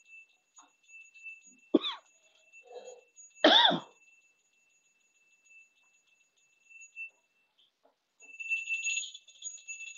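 A small puja bell ringing on and on in a thin steady tone, which stops just after seven seconds and comes back louder near the end. Two short loud coughs break in, about two and three and a half seconds in.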